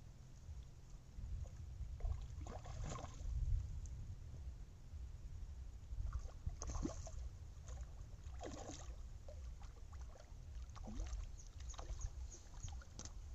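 A hooked fish splashing and thrashing at the water's surface as it is played in close to the shore and grabbed by hand. Irregular splashes about three, seven and nine seconds in, then a run of smaller splashes near the end, over a steady low rumble.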